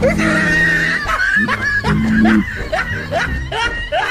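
Cartoonish snickering laugh sound effect, a string of short rising snickers about twice a second, over background music.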